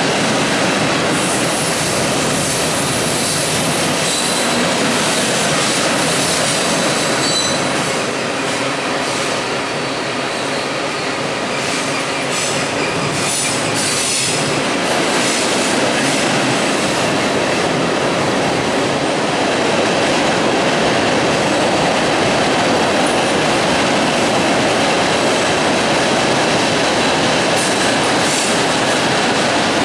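Freight cars of a CSX manifest train, mostly loaded tank cars, rolling across a steel bridge: a steady rumble and rattle of wheels on rail. A thin high wheel squeal sounds over the first several seconds, and there is a short burst of clanking at about twelve to fourteen seconds in.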